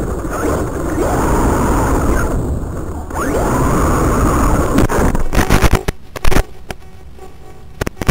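Feiyue Eagle RC car's electric drive picked up on board: the motor whines up and runs under load with tyre and gravel noise on dirt, twice. About five seconds in there is a burst of loud, sharp knocks and crackles.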